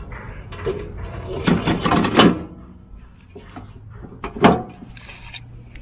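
Sheet-metal backing plate of a bagger kit being fitted back onto the side-discharge of a walk-behind mower deck, metal on metal. A cluster of clanks and rattles comes about one and a half to two seconds in, and one sharp clank comes a little after four seconds, with light taps in between.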